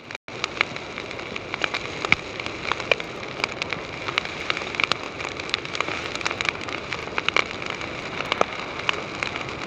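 Wood fire crackling in a fireplace: a steady hiss dotted with many irregular sharp pops and snaps.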